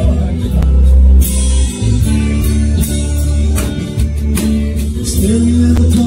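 Live band music: an acoustic guitar played over heavy bass and drum hits, with a voice singing.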